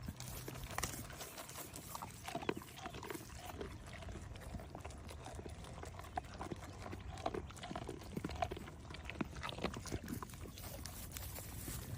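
Goats chewing treats close to the microphone: a run of irregular crunches and clicks, several a second, over a steady low hum.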